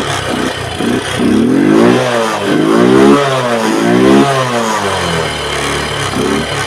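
Motorcycle engine revved three times in quick succession, rising and falling in pitch each time, then settling back to a steady idle.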